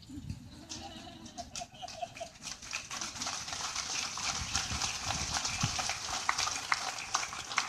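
Crowd applauding: many hands clapping, building up about a second in and carrying on steadily.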